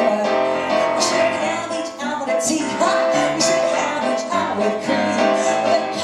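A woman singing live into a microphone, accompanied by a grand piano.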